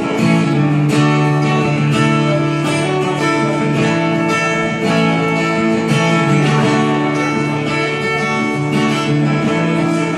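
Music: an instrumental break in a song, with strummed guitar chords and no singing.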